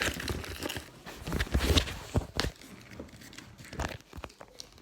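A mailing package being handled and opened by hand: irregular crinkling and rustling of packaging with scattered clicks and knocks, loudest a couple of seconds in.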